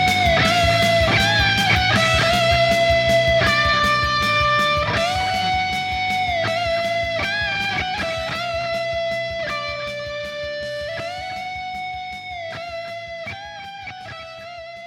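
Gibson electric guitar through a Line 6 HX Stomp XL playing a lead melody of long sustained notes over a rock backing track with drums and bass. The whole mix fades out gradually, and the drums die away in the second half.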